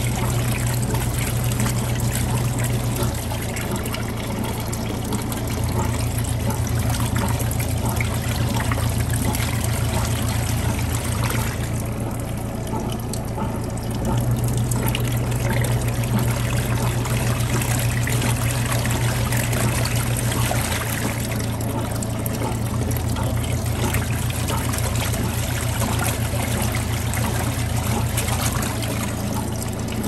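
Kuppet portable washing machine running: a steady motor hum with water trickling, the hum shifting in level every several seconds.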